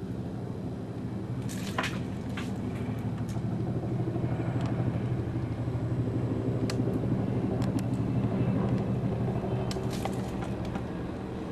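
Helicopter flying overhead: a steady low rotor and engine drone that grows louder toward the middle and eases off near the end, with a few faint sharp clicks.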